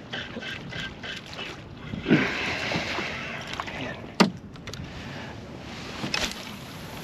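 Small waves lapping and slapping against the canoe's hull, with one sharp, loud knock about four seconds in.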